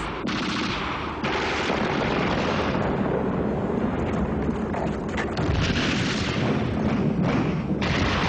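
Combat sound effects: a continuous din of gunfire and explosions, with a few sharper cracks after about five seconds.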